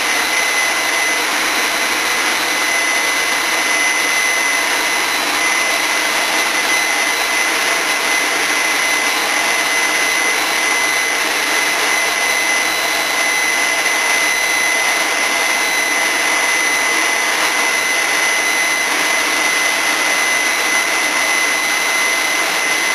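Leaf blower running steadily: a constant rush of air with a steady high-pitched whine.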